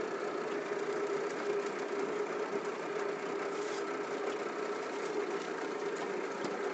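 Mercury 9.8 hp outboard motor running steadily at low trolling speed, an even drone with a constant pitch.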